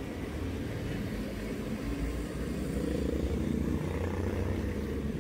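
Daihatsu All New Terios driving slowly, its engine hum and tyre rumble heard from inside the cabin, growing a little louder about two seconds in.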